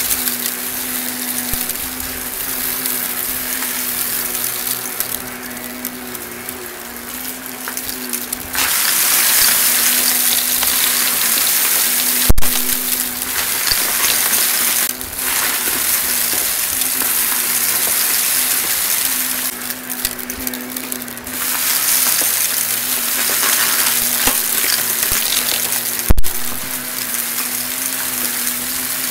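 Shark Navigator XL upright vacuum running, with a steady motor hum under a continuous hiss and crackle of sand, glitter and confetti being sucked up from carpet. The hiss rises and falls as the head moves over the debris, and two sharp clacks come about twelve seconds in and again near the end.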